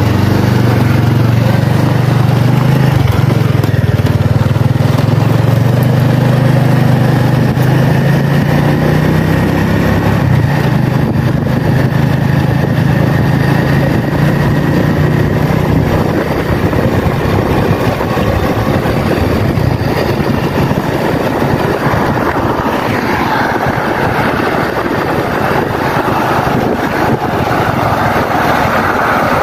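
Small motorbike engine running, first with a steady low hum, then under louder wind and road noise on the microphone as the bike rides along.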